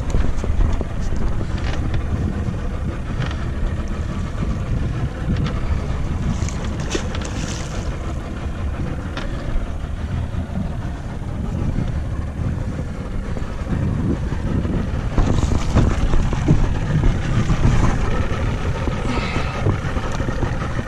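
Wind buffeting the microphone aboard a small boat at sea, a steady low rumble with water noise under it, gusting louder for a few seconds past the middle.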